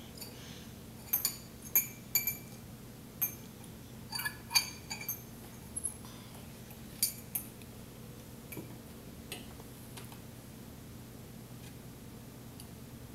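Fork clinking against a plate: about a dozen sharp, ringing clinks over roughly six seconds, then a few fainter ones, over a steady low hum.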